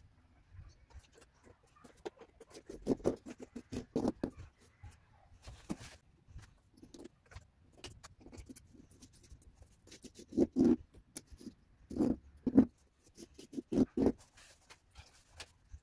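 Orange plastic tile-leveling caps being set and screwed down onto their posts on ceramic floor tiles: irregular clicks, rattles and scrapes of plastic on tile, with louder bunches about three seconds in and again through the last third.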